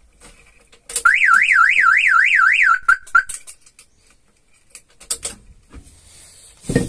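Aftermarket car alarm siren on a Mitsubishi L300 pickup, sounding a fast warbling wail for under two seconds that settles into a short steady tone. It is set among scattered clicks, with a loud thump near the end.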